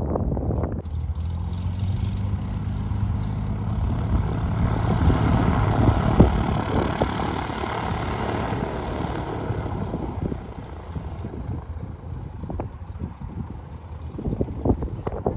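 Cessna 182 Skylane's six-cylinder Continental O-470 engine and propeller running at low power as the plane rolls past on the ground. It grows louder up to about six seconds in and fades after about ten seconds. Wind buffets the microphone near the end.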